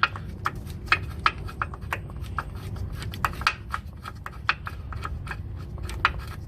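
Metal hand tools clicking and tapping irregularly, a few clicks a second, as a loosened hub-assembly bolt is unscrewed by hand with a socket and extension.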